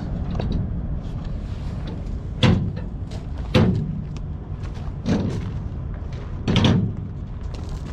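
Four loud metal clanks, one every second or so, from a cargo chain, lever load binder and cheater pipe as the binder is forced over to tighten the chain.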